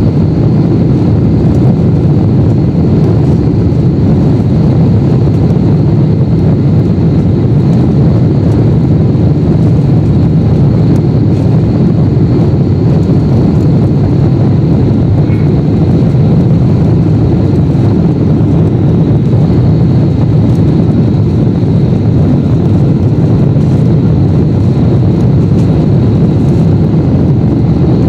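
Steady cabin noise of a Boeing 747-8 on final approach with its flaps extended: airflow and engine noise heard through the fuselage as a deep, even rumble with a faint high whine above it.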